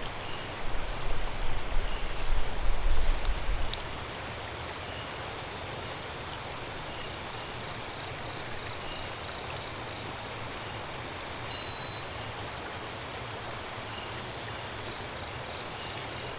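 Steady rush of flowing river water with insects chirring in high, unbroken tones. A low rumble sits under it for the first four seconds, then drops away.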